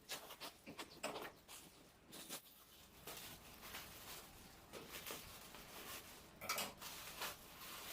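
Parcel packaging being handled and unwrapped: irregular rustling and crinkling with small clicks and taps.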